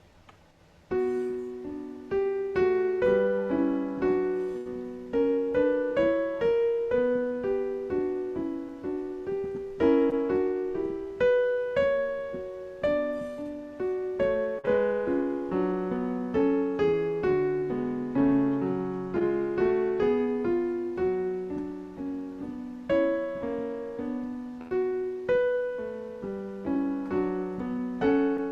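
Piano playing a slow, melodic piece, beginning about a second in.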